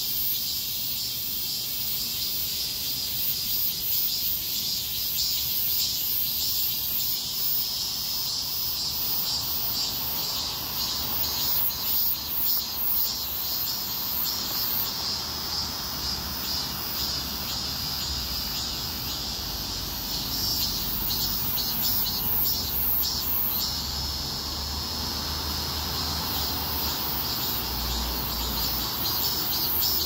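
Cicadas singing in chorus: a steady, shrill, high-pitched drone that pulses in places.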